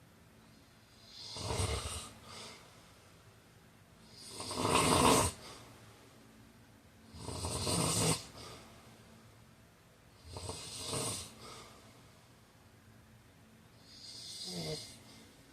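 A sleeping man snoring steadily, five snores about three seconds apart, the loudest about five seconds in.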